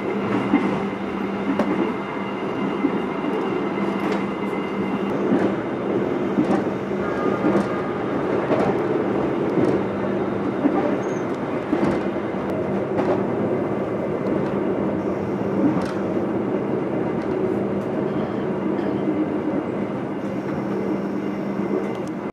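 Lodaya passenger train heard from inside its first-class carriage while running at speed: a steady rumble of wheels on the rails with a constant low hum, and scattered clicks and knocks.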